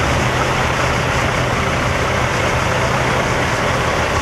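Diesel semi-truck engines idling: a steady low drone with a constant hum.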